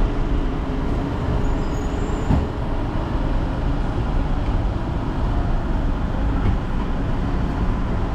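Road traffic: vehicle engines running in a steady, low rumble.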